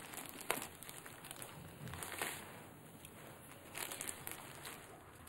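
Faint rustling and crinkling with a few soft clicks in a quiet room, the sharpest click about half a second in.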